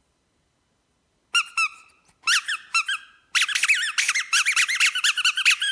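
Squeaky dog toy being squeaked: two squeaks, a short pause, a few more, then a rapid run of squeaks, several a second, each rising and falling in pitch.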